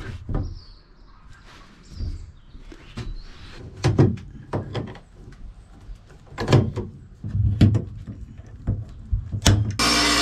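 A string of sharp clicks and knocks from hand tool work, including a hand rivet tool squeezed on aluminium tubing. Near the end a table saw starts running with a loud, steady hum.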